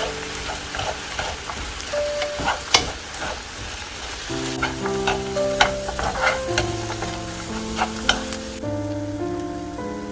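Dried anchovies and other ingredients sizzling in hot oil while a spatula stirs them, clicking and scraping against the pan. The sizzle drops away about eight and a half seconds in. Background music plays underneath.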